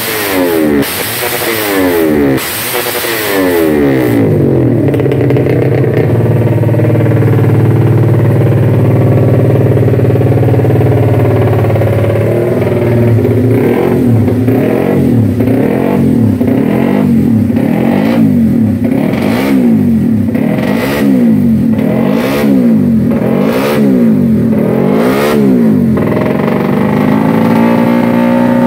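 Tuned Honda Supra GTR 150 race bike's single-cylinder four-stroke engine running through an aftermarket racing muffler. It is blipped quickly a few times, held at steady revs for several seconds, then revved up and down over and over, about once a second.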